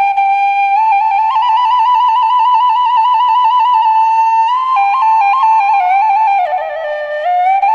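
Background music: a solo flute melody ornamented with many rapid trills, dipping lower about six and a half seconds in before climbing back.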